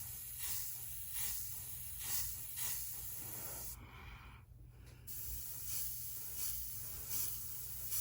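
Airbrush spraying paint in short repeated bursts of hiss. It stops for about a second around the middle.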